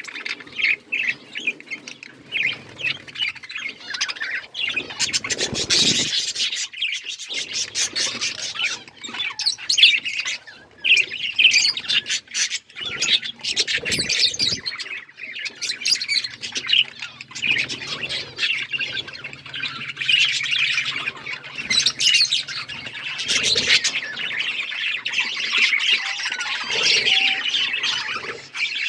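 Budgerigars chirping and chattering continuously: a dense stream of quick high calls and squawks, with many sharp clicks mixed in.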